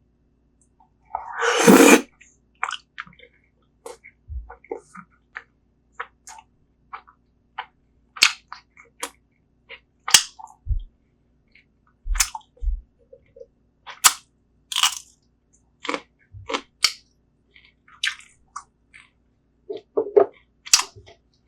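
A person eating close to the microphone: irregular wet chewing and lip-smacking clicks from mouthfuls of spicy braised seafood. A louder, noisy rustle-like burst comes about a second and a half in.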